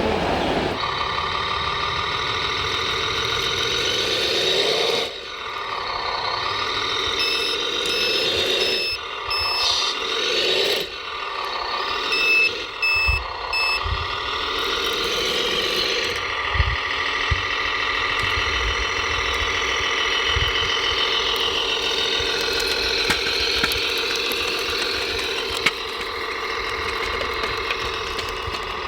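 Radio-controlled scale trucks running with a steady truck-engine sound, and a reversing beeper sounding in two short runs of even beeps, about seven and twelve seconds in, with a few light knocks and rattles.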